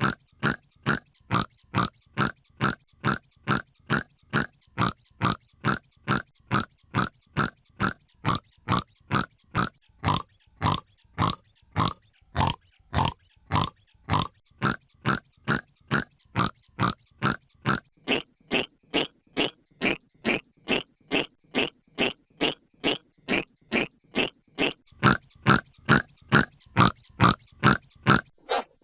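A hiccup sound effect repeated about twice a second, put through editing effects that shift its pitch and tone. It turns brighter a bit past halfway and louder near the end.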